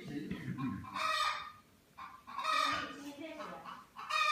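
Farmyard poultry calling: a loud, pitched call repeats about every second and a half, three times in all.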